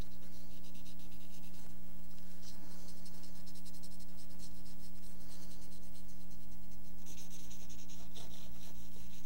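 Cotton swab rubbing and scratching lightly over a drawing on paper, blending the colour in short strokes, over a steady low electrical hum.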